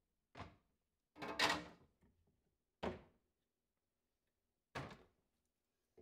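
Food containers set down and slid into refrigerator shelves and door bins: four knocks, the second a longer scrape and the loudest.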